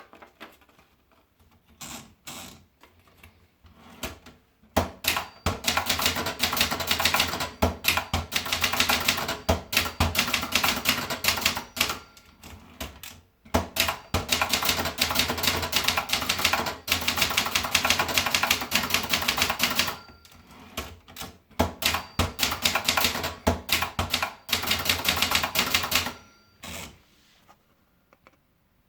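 Brother Deluxe 220 typewriter being typed on: a few single keystrokes, then long runs of fast, even key strikes with two short pauses, stopping about two seconds before the end.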